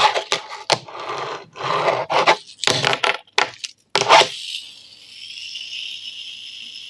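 Fingerboard with new wheels being handled and rolled, clattering and scraping in quick irregular bursts. After about four and a half seconds this gives way to a steady high-pitched whir, as of a freshly fitted wheel spinning freely on its bearings.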